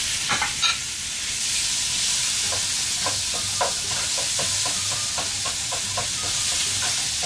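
Raw pork loin cubes sizzling in hot oil in a frying pan, a steady sizzle. From about two and a half seconds in, a utensil stirring them knocks and scrapes against the pan two or three times a second.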